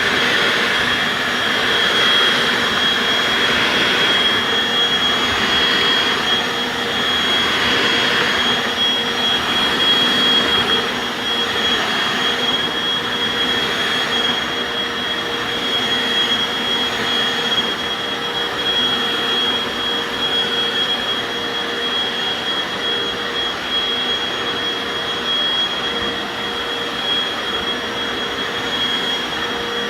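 Hoover FloorMate carpet washer running on a rug: a steady motor whine with a high, steady tone over the noise of its suction. The sound swells and fades a little over the first ten seconds or so, then settles slightly quieter.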